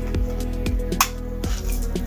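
Background music with steady held notes, and one sharp click about halfway through.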